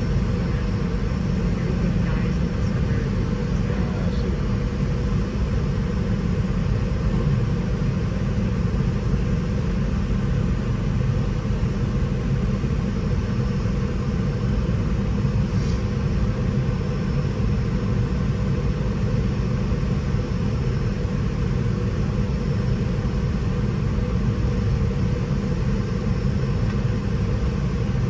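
Steady low rumble of a Boeing 717 airliner and its twin rear-mounted turbofans, holding an even level with no rise in power.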